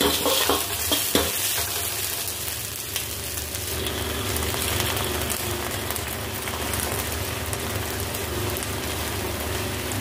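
A metal ladle scraping and knocking against a wok for about the first second, then a steady sizzle of onions, garlic and chillies frying with sauce in the hot wok.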